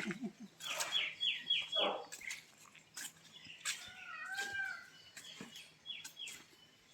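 Animal calls: a quick run of short, high chirps about a second in, then one longer call that rises and falls about four seconds in, over a faint steady hum.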